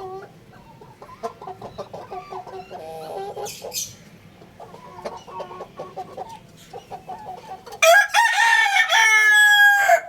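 Young rooster clucking in short repeated calls, then, about eight seconds in, a loud crow of about two seconds that ends on a falling note.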